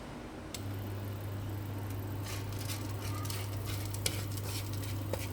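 Food sizzling and crackling in a hot pan, the crackle growing denser from about two seconds in, over a steady low hum.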